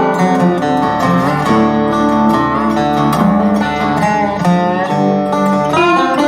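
Background music led by plucked guitar, with notes that slide between pitches.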